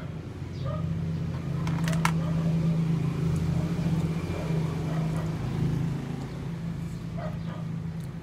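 A low engine drone that swells for a few seconds in the middle, then eases off. A couple of sharp clicks come about two seconds in.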